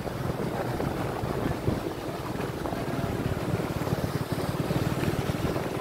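Wind buffeting the phone's microphone, a low, fluttering rumble over the steady rush of a fast mountain river.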